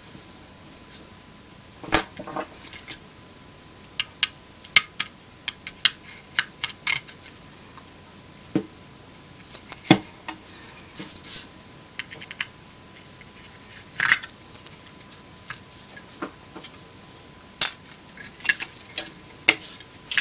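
Irregular small clicks and taps of tools against the plastic and metal parts of an SJ1000 action camera as it is taken apart, with a few sharper clicks around two, ten, fourteen and eighteen seconds in.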